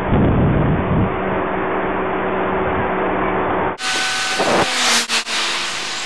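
Street traffic noise with a low engine hum, heard through a handheld camera's microphone. About two-thirds of the way through the sound changes abruptly to a brighter, hissier noise with a few faint steady tones.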